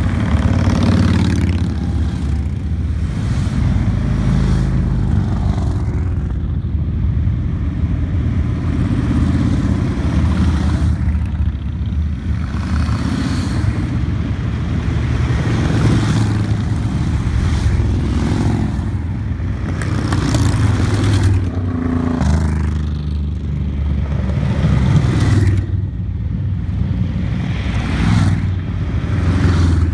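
A procession of cruiser and touring motorcycles riding past one after another, the deep engine rumble swelling and fading as each bike or small group passes.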